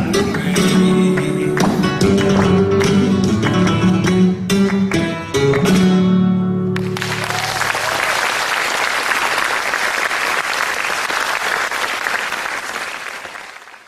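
Flamenco music with acoustic guitar and sharp percussive accents, closing on a held final chord about halfway through, followed by audience applause that fades away near the end.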